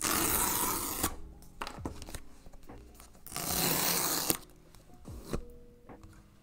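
Paper tear-strip seals ripped off a new iPad's cardboard box right at the microphone: two tearing rips, each about a second long and about three seconds apart. Light taps and cardboard handling follow as the box lid is lifted.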